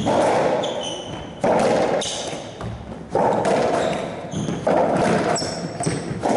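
Racquetball rally: five sharp impacts about a second and a half apart, the ball struck by racquets and hitting the walls, each ringing in the enclosed court. Short high squeaks of shoes on the court floor come between the hits.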